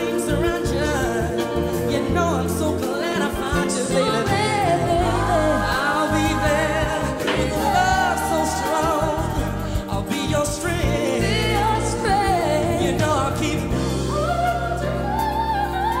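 Background music: a song with a wavering sung vocal over a sustained bass line.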